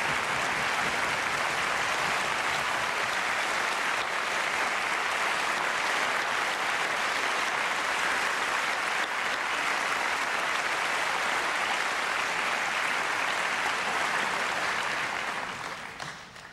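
Concert audience applauding steadily, dying away in the last second or so.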